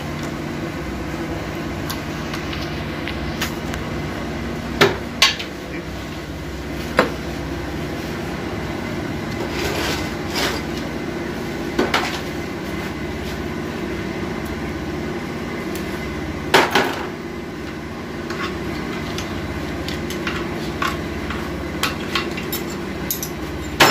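Metal tools and automatic transmission parts clinking and knocking against the aluminium case now and then while it is being taken apart, with the sharpest knocks about five seconds and about sixteen seconds in, over a steady low hum.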